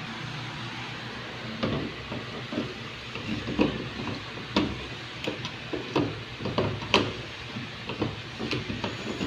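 Irregular light clicks and knocks of a smoke detector and its wiring being handled, over a steady background hiss. The clicks start about one and a half seconds in.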